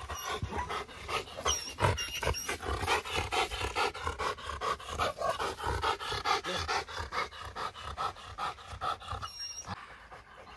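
German shepherd panting fast and hard, about four to five breaths a second, worked up by the scent of a female in heat.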